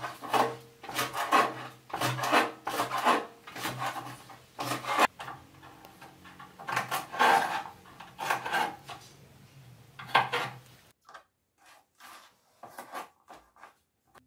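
Kitchen knife cutting green beans on a plastic cutting board: irregular scraping strokes, two or three a second, over a low steady hum. About eleven seconds in the hum stops and the strokes become fewer, shorter taps.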